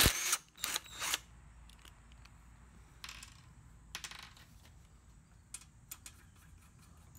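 Small steel engine parts (rocker arms, their nuts and pushrods) clinking and clattering as they are taken off a small engine's head and set down on a wooden bench. A cluster of sharp clinks comes in the first second, then a few lighter clicks and rustles.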